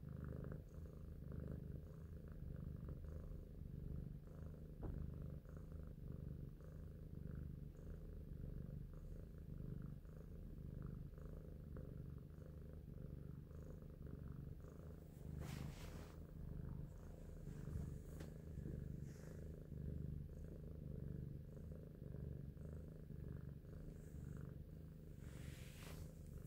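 Domestic tabby-and-white cat purring steadily while being stroked on the head, the purr swelling and easing with each breath. A brief rustle comes about halfway through and again near the end.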